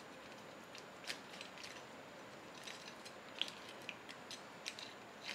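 Kitchen knife cutting the gills of an arakabu (marbled rockfish) free from the head, a string of faint, crisp, irregular snips and crunches as the blade works through gill and cartilage.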